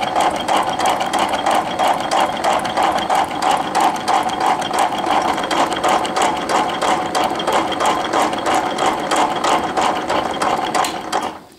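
Rhodes 7-inch metal shaper running, its ram stroking back and forth as the cutting tool takes a cut in a cast aluminum workpiece: a fast, even clatter over a steady whine. It stops near the end.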